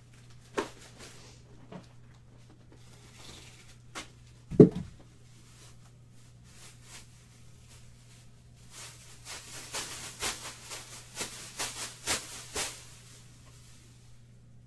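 Off-camera handling noises: a few light clicks, a heavy thump about four and a half seconds in, then a run of rapid rustling and crackling, like plastic packaging being handled, from about nine to thirteen seconds. A steady low hum runs underneath.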